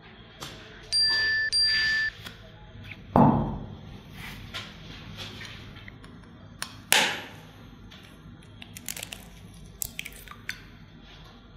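Two short ringing beep tones one right after the other, then a heavy thump about three seconds in. From about seven seconds, a metal fork taps an eggshell, a sharp tick followed near the end by a run of lighter clicks as the shell cracks.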